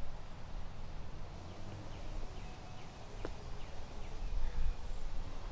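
Outdoor ambience: low, uneven wind rumble on the microphone, with a few faint high bird chirps and one sharp click a little past halfway.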